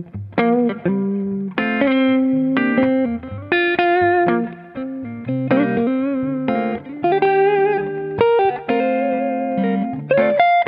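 Electric guitar played through an AmS Hurricane 40 amplifier: a melodic phrase of picked single notes and short chords, some held notes wavering with vibrato.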